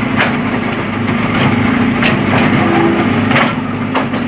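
Engine of a digging machine running steadily, with about five sharp cracks of material breaking and splintering.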